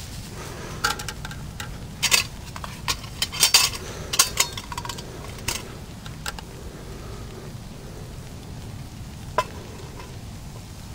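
Metal camp cookware clinking and knocking as a steel mess tin of coffee and a metal cup are picked up and handled: a scatter of short, sharp clinks in the first half and one more near the end.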